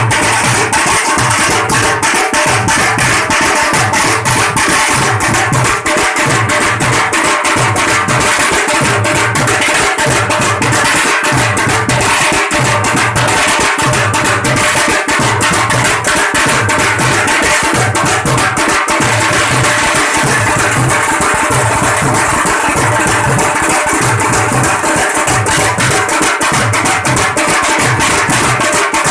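A group of tasha drums played together with thin sticks: fast, dense rolls of strokes over a steady, regularly repeating low drum beat.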